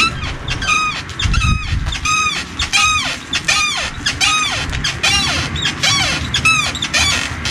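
Kayo K1 pit bike's rear suspension squeaking as it is compressed and released, about two squeaks a second, each rising then falling in pitch. The squeak comes from dry, unlubricated suspension pivots, which the owner suspects are the swingarm bushings.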